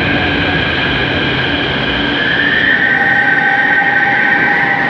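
São Paulo Metro Line 5 Frota P train moving slowly along the station platform, a steady rumble under several high, held whining tones from its running gear, which stop near the end as the train comes to rest.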